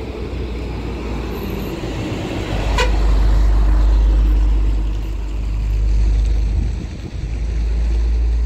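Loud low rumble of wind buffeting the microphone, swelling and easing several times, with a short high-pitched toot about three seconds in.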